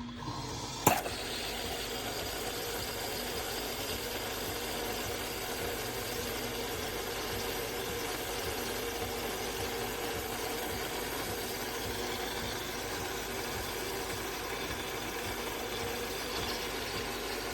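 De'Longhi Magnifica Start fully automatic espresso machine running with a steady mechanical hum, after a sharp click about a second in.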